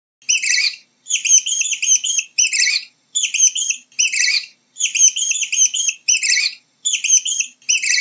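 An animal's high-pitched chirping calls in quick bursts of several chirps each, repeated with short pauses between.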